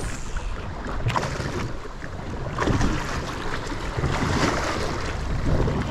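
Wind buffeting the microphone over choppy water, with waves lapping against a small plastic boat's hull in irregular surges.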